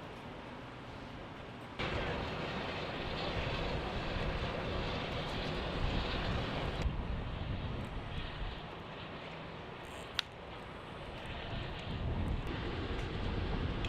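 Steady engine and wind noise that changes abruptly about two seconds in and again about seven seconds in. There is a single sharp click about ten seconds in.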